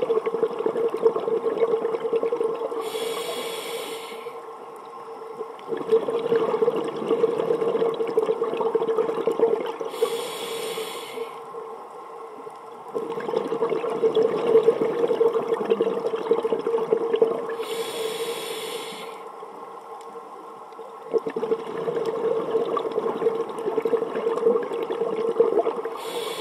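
A scuba diver breathing through a regulator underwater, about every seven to eight seconds. Each breath is a short hiss of air on the inhale, then a longer, louder rush of exhaled bubbles.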